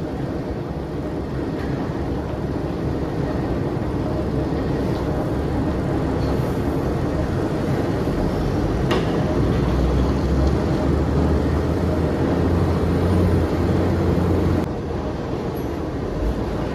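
Heavy iron ore crushing plant machinery running with a loud, steady rumble. The deep low rumble swells over several seconds and then drops off abruptly about fifteen seconds in, with a single sharp knock near nine seconds.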